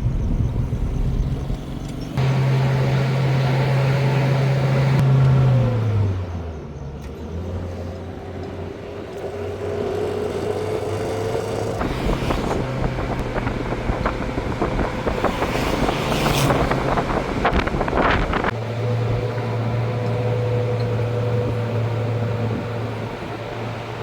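A vehicle engine running steadily. Its pitch drops about a quarter of the way in, and there is clattering and knocking in the middle stretch. The sound changes abruptly twice, as at cuts.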